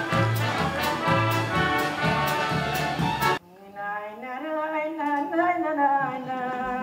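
Band music with brass plays and cuts off suddenly about halfway through. A woman then hums a melody, her pitch sliding up and down.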